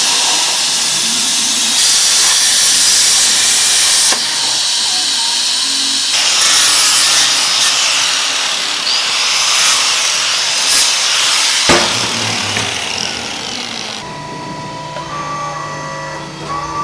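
Angle grinder with a flap disc grinding and deburring the edges of a cut steel bracket plate, in several stretches of loud, harsh grinding. Near the end the grinding stops and a quieter, steady hum remains.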